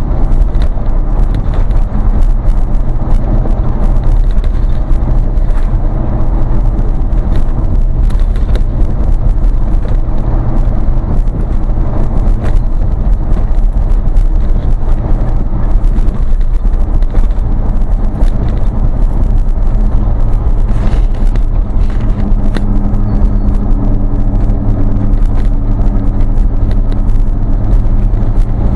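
Motor vehicle driving at speed on a paved road: steady engine drone and road rumble, heavy in the low end, with many short clicks and knocks. The engine tone grows stronger about three-quarters of the way through.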